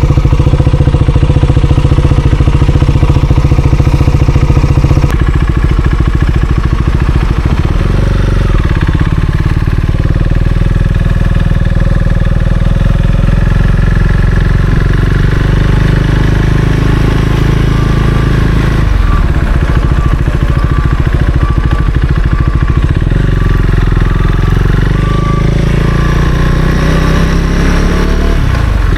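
Husqvarna Svartpilen 401's single-cylinder engine running under way, loud and continuous, its note shifting up and down several times as the revs change.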